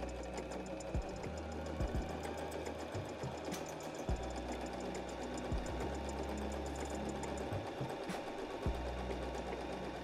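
Janome J3-20 sewing machine running steadily at speed, its needle stitching rapidly in free-motion embroidery with the feed dogs dropped, with a few low knocks along the way.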